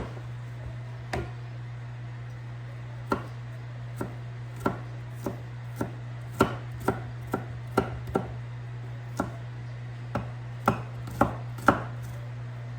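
Kitchen knife dicing peeled garlic cloves on a cutting board: about twenty separate knocks of the blade against the board at an uneven pace, quickening near the end. A steady low hum runs underneath.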